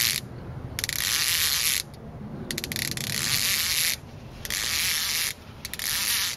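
Fishing reel buzzing in about five bursts of roughly a second each, with short gaps between, while a hooked fish bends the rod.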